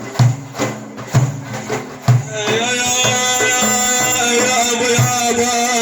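Instrumental music between sung verses: a hand drum beating about twice a second, then from about two and a half seconds in a long held instrumental note with many overtones.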